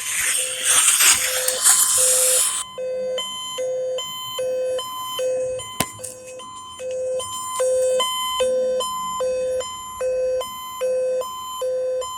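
Emergency Alert System attention tone on broadcast radio, heralding a Child Abduction Emergency: a steady shrill electronic tone with a lower tone beeping about twice a second. For the first two and a half seconds it sits under loud, harsh hissing noise, then it sounds clean.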